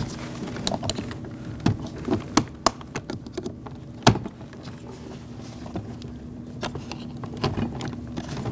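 Pry bar unclipping the felt window weather strip from its metal retainer on a Lexus IS250 front door: a series of irregular clicks and knocks, the loudest about four seconds in, over a steady low hum.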